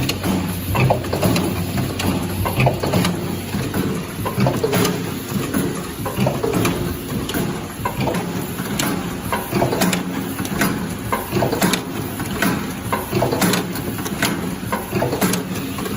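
Automatic coffee valve welding machine running: a steady low hum with repeated irregular clicks and clacks from its moving mechanisms.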